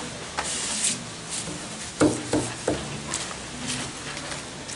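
Kitchen knife trimming banana leaves on a wooden cutting board: several sharp knocks of the blade on the board, clustered around the middle, with rustling of the stiff leaves.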